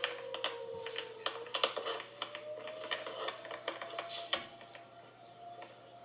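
A distant dual-tone outdoor warning siren sounding a steady wail that dips slightly and then slowly rises in pitch, fading toward the end. Over it comes a run of close sharp clicks and taps, like keyboard typing, which stop about two-thirds of the way through.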